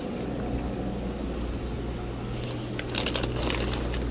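Plastic fish-shipping bags crinkling and rustling as they are handled, in a short burst about three seconds in, over a steady low background hum.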